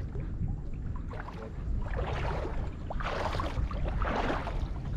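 Shallow water sloshing in three swishes about a second apart, stirred by a cast-net fisherman standing in it, over a steady low rumble.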